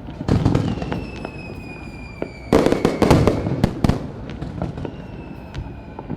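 Aerial fireworks going off in a rapid string of bangs and crackles, loudest in a dense cluster of bursts about two and a half seconds in. A high whistle slides slowly down in pitch through the first half and comes again near the end.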